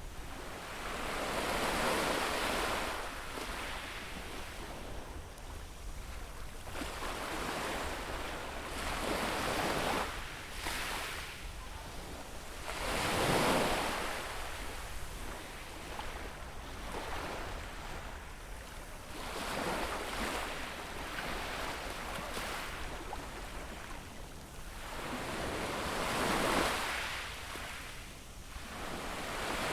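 Sea waves washing onto the shore, swelling and falling back every few seconds, with the strongest surges about halfway through and near the end.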